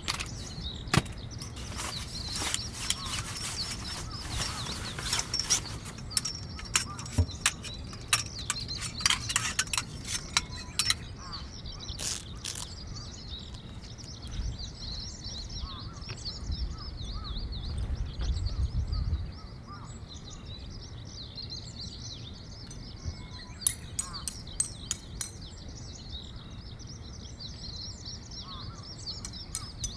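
Birds chirping steadily, with a run of sharp clicks and knocks through the first ten seconds or so and another short cluster of clicks near the end. A low rumble swells for a few seconds midway.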